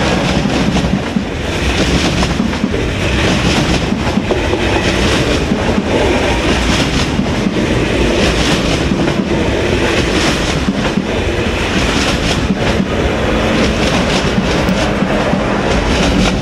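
A train passing close by at speed, its running noise loud and steady, with the wheels clicking over rail joints.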